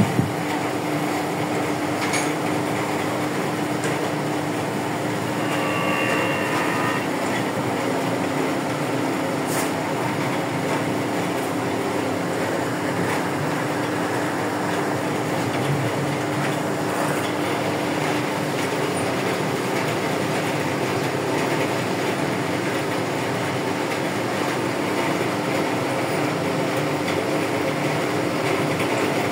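CNC router spindle milling a metal die block with a small end mill: a steady cutting noise over a constant spindle tone.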